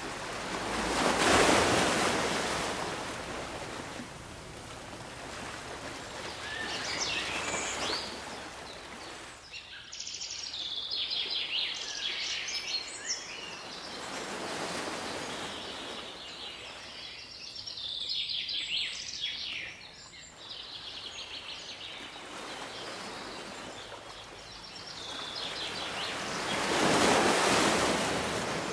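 Waves washing in on a beach, loudest about a second in and again near the end. Birds call in several bursts of quick high chirps in between.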